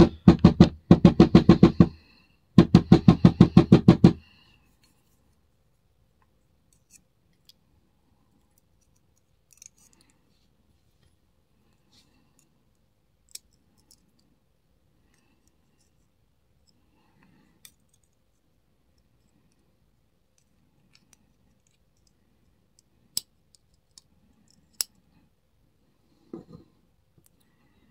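A loud rhythmic buzzing, music-like sound for about the first four seconds, then near quiet broken by a few small sharp clicks as springs and pins are pulled out of a pin-tumbler lock cylinder.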